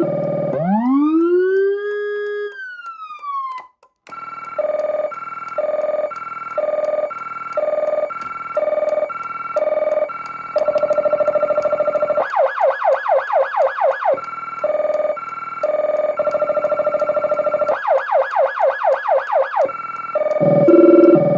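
Electronic emergency-vehicle siren played through a speaker, cycling through its tones. It opens with a wail that rises and then drops away. Then comes an alternating high-low two-tone, twice broken by a couple of seconds of rapid yelp sweeps, and near the end a lower, fast-sweeping tone comes in.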